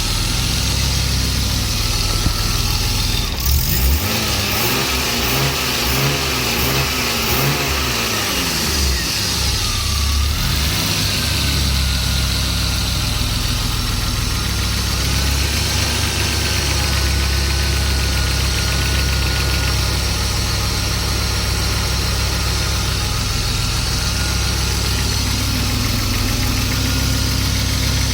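BMW M50 straight-six engine running: revved up and down a few times about four seconds in, then idling steadily, with the ticking sound that the owner is recording it for.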